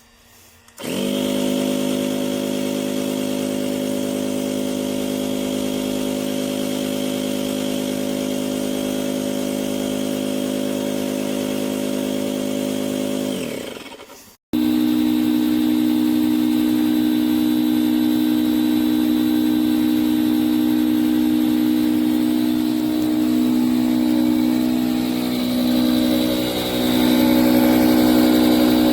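DREAMPUMP 16 PSI hoseless electric paddle board pump running with a steady motor hum. It starts about a second in and winds down around the middle. After an abrupt break it runs again, louder and at a different pitch, wavering slightly near the end.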